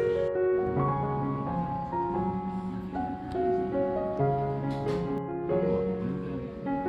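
Background music: a gentle melody with piano and keyboard, with notes changing every half second or so.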